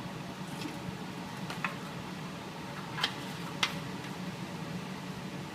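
Four short, sharp clicks, spaced irregularly, over a steady low hum.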